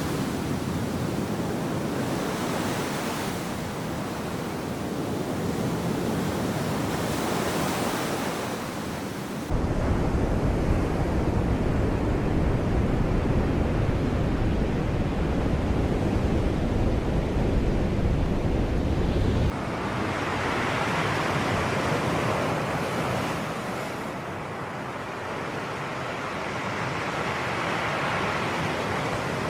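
Sea waves washing on the shore, a steady wash of surf that swells and eases. From about ten to twenty seconds in, a deep low rumble starts and stops abruptly beneath the surf.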